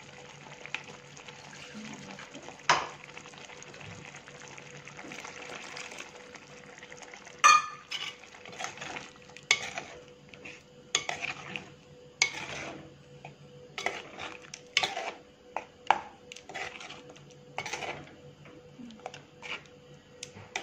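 Stainless steel ladle stirring a thick coconut-paste chicken curry, scraping and knocking against the pot. A low sizzle from the curry runs under the first part, with two sharp knocks, then a busy run of short clicks and scrapes from about eight seconds in.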